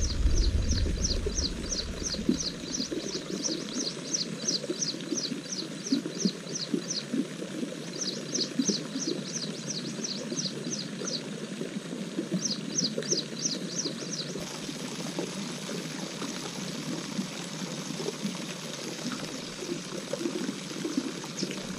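Rapid high chirping from a small animal, about four chirps a second, in three runs that stop about fourteen seconds in, over a steady low crackle.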